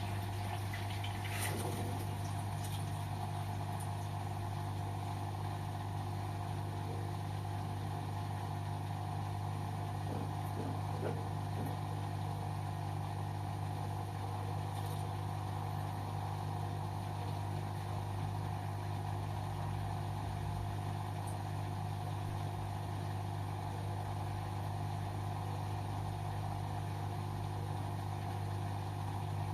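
LG washing machine running mid-cycle with a steady, unchanging hum.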